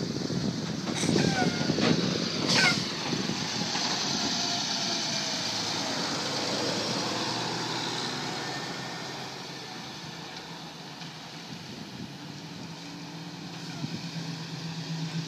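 Passing road traffic: a vehicle's tyre and engine noise swells and fades over several seconds, with two sharp knocks in the first three seconds. Then a 2002 Ford Mustang rolls up close at low speed, its engine giving a low, steady note near the end.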